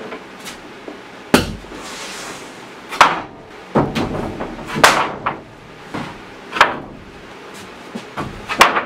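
Long wooden boards being set down and stacked on a wooden workbench: a series of about eight sharp wooden knocks and clatters, several of them loud, as board lands on bench and on board.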